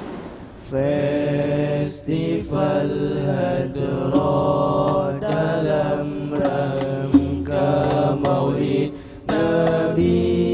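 A group of young men singing sholawat, Islamic devotional chant, together into microphones, in long held phrases broken by brief pauses.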